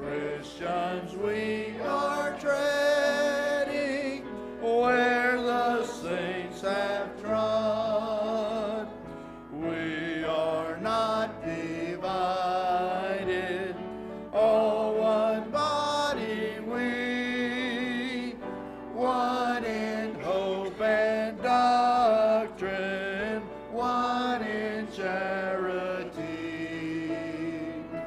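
Mixed church choir of men and women singing a hymn in sustained phrases.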